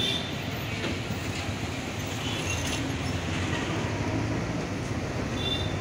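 Steady low rumble of street traffic and idling vehicle engines, with a couple of short light clinks near the start and near the end.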